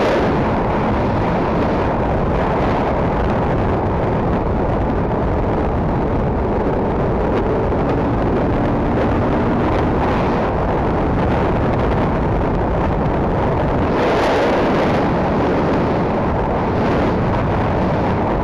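KTM RC390's single-cylinder engine running steadily at highway cruising speed, under heavy wind rush on the bike-mounted microphone. A louder gust of wind about fourteen seconds in.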